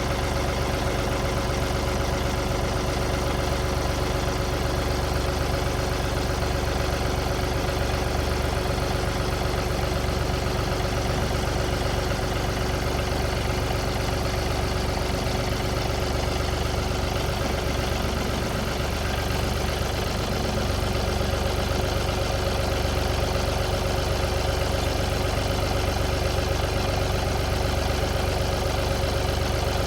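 John Deere 2032R compact tractor's three-cylinder diesel engine running steadily, with a slight dip in level about two-thirds through.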